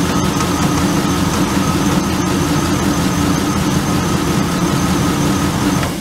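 GM 5.3-litre Vortec V8 idling steadily, its lifter tap at the front cylinders sounding much reduced to the owner after running transmission fluid in the oil. It is switched off near the end and the sound dies away.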